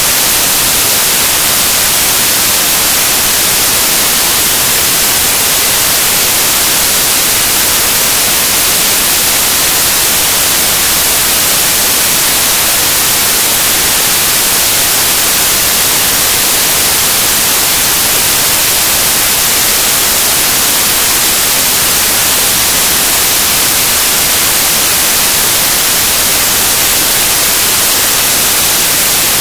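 Loud, steady hiss of static, strongest in the high frequencies and unchanging throughout, with no match sounds heard through it.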